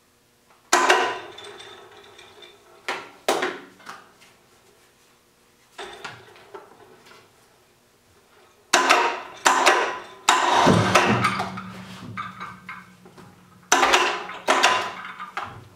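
Clunks and knocks of a CNC lathe tool turret being shifted against the machine while it is set in place. From about ten and a half seconds in, an electric hoist motor hums steadily as it lowers the turret, with two more knocks over it.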